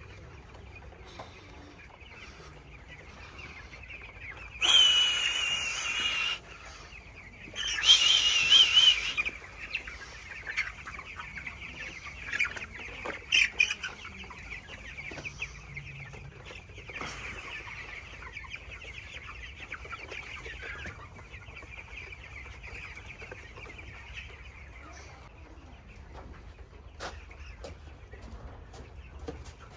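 A flock of 16-day-old broiler chicks peeping steadily. Two loud, shrill, wavering cries, each over a second long, stand out about five and eight seconds in.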